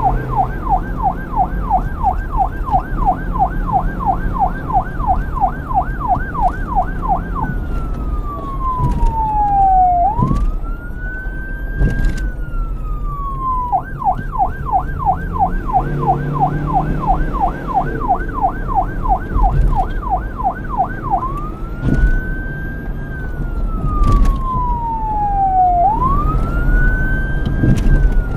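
Electronic police siren alternating between a fast yelp, its pitch swinging up and down about three times a second, and a slow wail that rises and falls over a few seconds each. A low rumble runs underneath.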